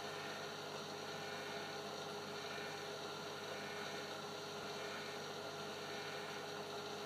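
Steady electrical hum with several held tones over an even hiss, and a faint swish about once a second.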